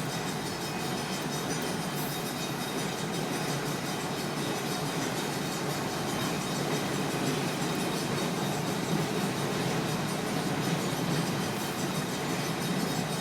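Freight train cars rolling past, a steady noise of wheels on the rails.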